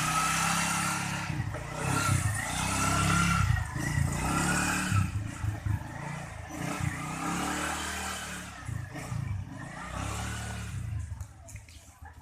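Suzuki Spin scooter's single-cylinder four-stroke engine revving up and falling back several times on a test run, after its fouled spark plug was cleaned to cure backfiring on deceleration. The engine sound falls away near the end.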